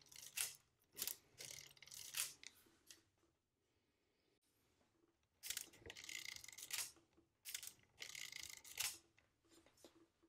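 Mercedes-Euklid Model 1 mechanical calculator being worked by hand: faint metallic clicks and rattling from its carriage and intermediate gears as the carriage shifts. The clicking comes in two spells, one at the start and a longer one from about five and a half to nine seconds in.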